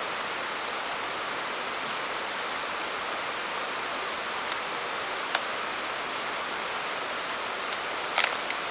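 Steady rushing of water, with a single sharp click about five seconds in and a few more clicks near the end.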